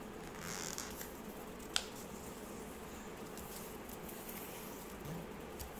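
Faint rustling of a square sheet of paper being folded and creased by hand, with one short sharp tick about two seconds in.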